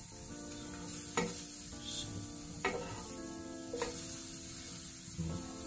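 Asparagus spears sizzling in a nonstick grill pan, with a few sharp clicks and scrapes as a plastic spatula turns them.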